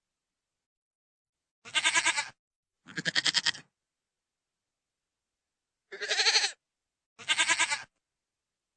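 Goat bleating: four short, quavering calls in two pairs, each cut off cleanly into dead silence.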